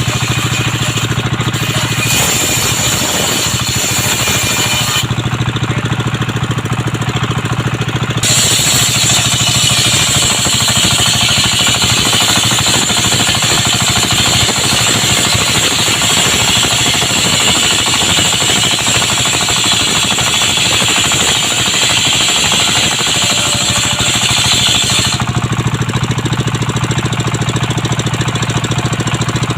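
Engine-driven circular sawmill running steadily, its blade ripping through young coconut wood: the cut adds a loud, high hiss over the engine from about eight seconds in until about twenty-five seconds in.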